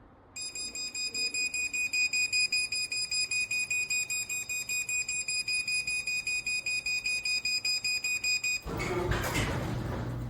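Rapid electronic warning beeps from a Chamberlain MyQ garage door hub, about seven a second for some eight seconds: the alert that the door is about to close by remote control. Near the end the garage door opener's motor starts, a steady hum with the rattle of the door moving.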